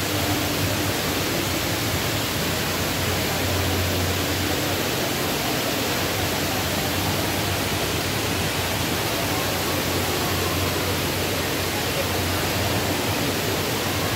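The Dubai Mall Waterfall: water sheeting down a tall indoor cascade in a steady, even rush.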